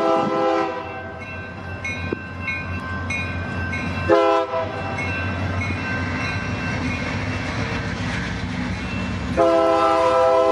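Union Pacific diesel locomotive's multi-chime air horn sounding a grade-crossing sequence: a long blast that ends under a second in, a short blast about four seconds in, and another long blast starting near the end. Between the blasts the locomotive's rumble grows as it approaches, with a crossing bell dinging.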